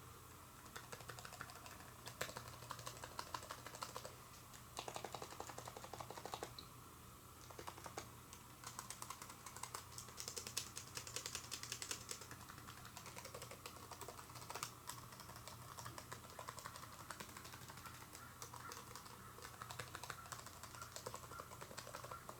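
Typing on a Microsoft Surface Book 2 laptop keyboard: quick runs of faint key clicks with short pauses, picked up from about two feet away.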